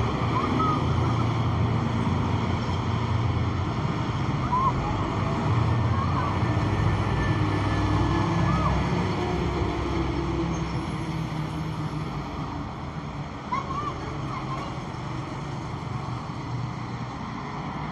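Traffic passing close by on a road: large cargo trucks and motorcycles, with engine rumble and tyre noise that is loudest in the first half and eases off after about ten seconds.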